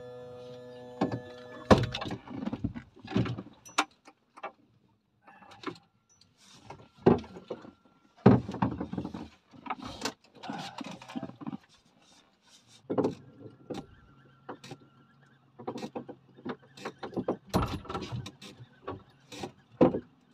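A fishing reel winds in line with a steady whirring whine that stops a little under two seconds in. Then comes irregular knocking and clatter of fishing tackle being handled on the boat.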